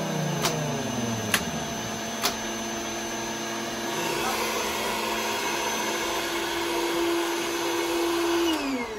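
Mini 3D-printed Thunderbolt 1003 siren blown by an air-mattress pump: the siren's tone falls over the first second or so, then a steady tone holds over the pump's hiss and sags away near the end. Sharp clicks sound about once a second over the first couple of seconds.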